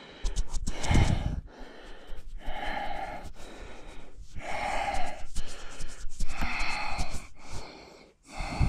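A mountain biker breathing hard, heavy regular breaths in and out every second or two, from the exertion of riding the downhill trail.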